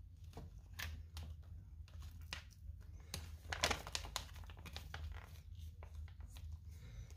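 Laminated MRE ration pouch crinkling as it is squeezed and shaken by hand to work out crumbly cornbread stuffing, a string of irregular crackles.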